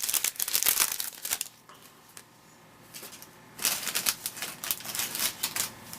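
2010 Bowman Platinum baseball cards being handled and flipped through one by one: a rapid patter of sharp clicks and slides of card on card. It pauses for about two seconds in the middle, then resumes.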